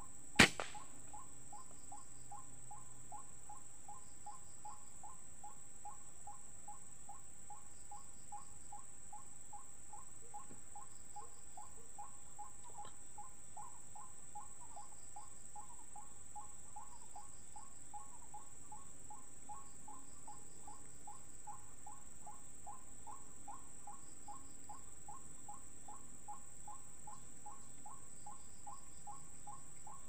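A single sharp crack of an air rifle firing about half a second in: the shot that took a white-breasted waterhen with a headshot. Under it a short waterhen call repeats evenly about twice a second from the electronic lure speaker, over a steady high insect drone.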